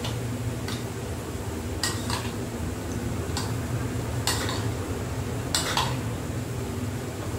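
A spoon stirring a wet salad of diced vegetables and yogurt in a ceramic bowl, clinking against the bowl about eight times at irregular intervals. A steady low hum runs underneath.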